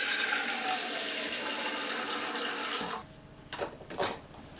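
Tap water running into a saucepan in a sink, filling it, stopping about three seconds in. Then a few light knocks as chestnuts are dropped into the water-filled pan.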